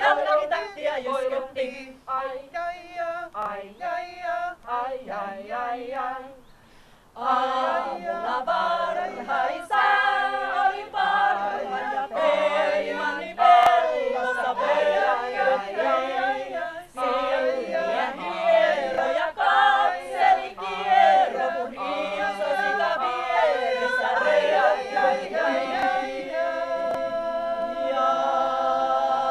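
Women's folk-song ensemble singing a Finnish folk song a cappella in several voices. The singing breaks off briefly about six seconds in, then goes on and ends on a long held chord.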